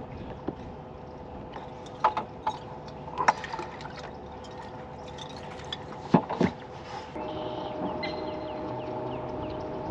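Water trickling and splashing on a bass boat with several sharp knocks on the deck as a just-caught bass is handled. A steady motor hum starts about seven seconds in.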